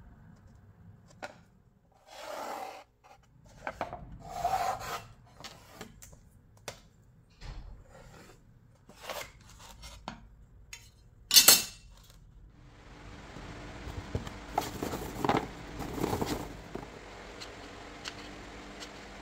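Pencil scratching lines onto plywood along a speed square, with the square and plywood pieces being shifted and knocked on the table-saw top. One sharp loud clack about two-thirds of the way through, then a steady low hum under further handling.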